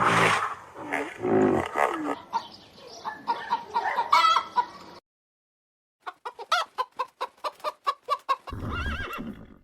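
Chickens clucking. A quick run of short, clipped clucks comes in after a brief dead gap about halfway through.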